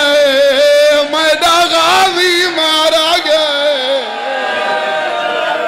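A man's voice chanting a mourning elegy (masaib) in long, wavering melodic notes. About four seconds in, it drops to a quieter, steadier held note.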